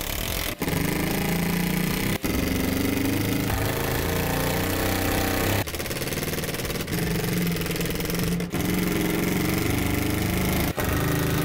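Cordless Ridgid impact driver running in several runs of one to three seconds with brief breaks between them, driving screws one after another through the plastic panels of a deck box.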